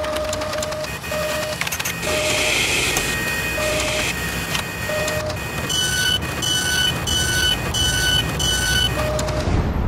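Mechanical sound effects: a steady machine rumble and whir with short electronic beeps over it, scattered lower single beeps at first, then a run of about six higher beeps, a little under two a second, in the second half.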